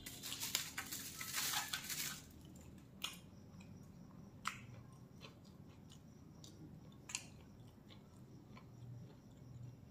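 Aluminium foil crinkling for about two seconds as the roll is handled on it, then quiet chewing of a mouthful of the wrapped roll, with a few sharp mouth clicks.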